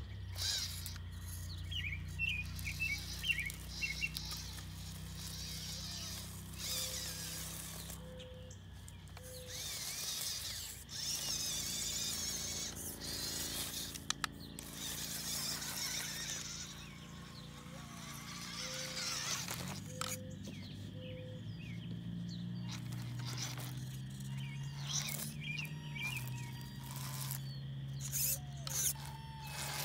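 WPL C14 RC truck's small electric motor and gearbox whining as the truck crawls over rocks, the pitch rising and falling with the throttle. Birds chirp now and then.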